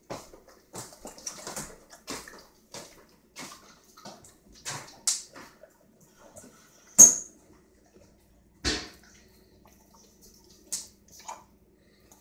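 Boxer dog licking and chewing a scrap of food off the floor, a run of wet smacks two or three a second. Two loud sharp clicks come about a second and a half apart around the middle.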